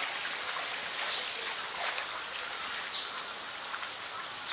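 Steady rush of running water in a polar bear enclosure's pool, even and unbroken, with a few faint short chirps over it.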